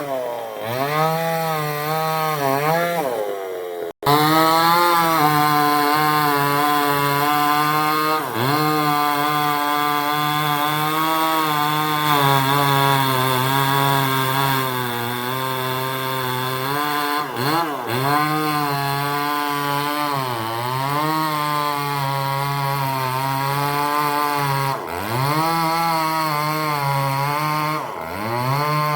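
Chainsaw running while cutting mango wood, its engine pitch dipping under load and climbing back several times as the chain bites. The sound breaks off for an instant about four seconds in.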